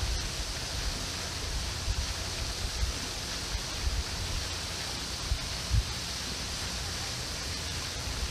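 Steady rushing hiss of a pond fountain's spray, with a few short, soft low thumps.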